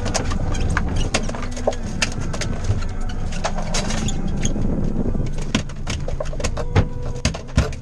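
Outboard motor of a small boat running at idle, a steady low rumble, with scattered sharp clicks and knocks on the boat over it.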